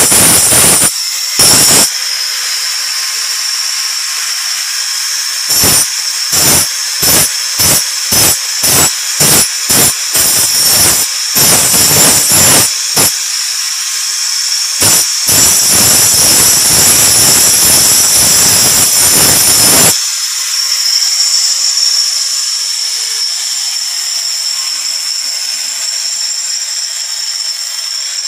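Electric angle grinder running with a steady high whine while its abrasive disc sharpens a steel knife blade. It bites in two short strokes near the start, then a quick run of short passes about two a second, then one long continuous grind. For the last several seconds the grinder runs free without touching the metal.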